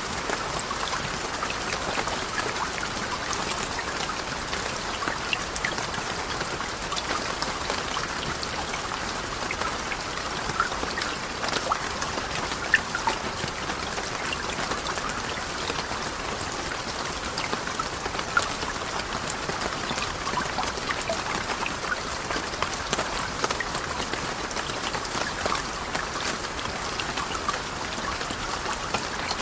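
Steady rain falling: an even hiss of drops with many small, sharp drop ticks scattered through it.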